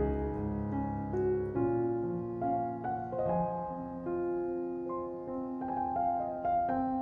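Background piano music: a slow, gentle melody of single notes over sustained lower chords.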